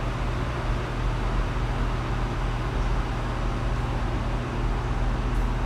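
Steady background noise: an even hiss with a low, constant hum underneath.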